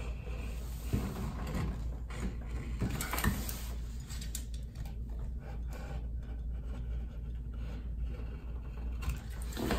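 A few faint clicks and knocks from a caulk gun being worked and handled while a bead of caulk is run around a shower valve trim plate, over a steady low hum.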